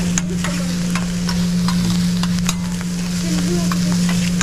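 Food sizzling on a hibachi flat-top griddle, with frequent short clicks and scrapes of metal spatulas against the steel, over a steady low hum.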